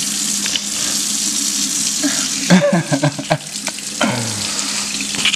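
Kitchen tap running steadily into a stainless steel sink, the stream splashing over a hand held under it. About halfway through come a few short splashes and brief mouth sounds.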